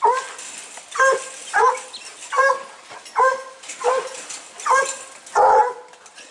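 A dog barking repeatedly, about eight short barks at a steady pace a little under a second apart, the last one louder and rougher.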